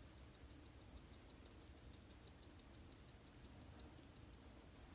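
Near silence: room tone with a faint, fast, even ticking, several ticks a second.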